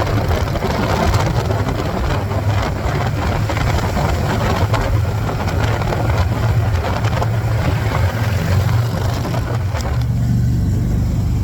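Motorcycle engine running steadily under way, a constant low engine note with a broad rushing noise over it that thins out about ten seconds in.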